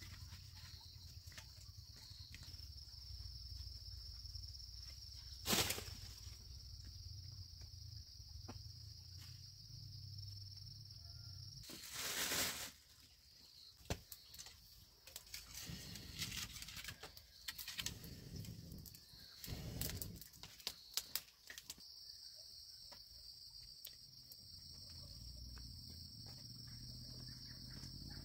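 Rural outdoor ambience: a steady high-pitched insect drone, with scattered knocks and rustles of handling. A sharp click comes about five seconds in and a louder rustle around twelve seconds. The drone drops away in the middle and returns near the end.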